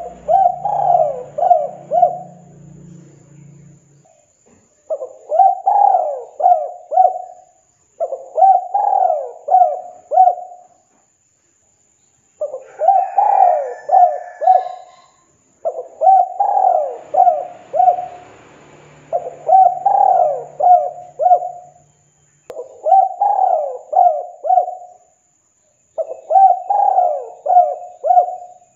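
Spotted dove cooing: a quick phrase of about four coos, repeated eight times with short pauses between phrases.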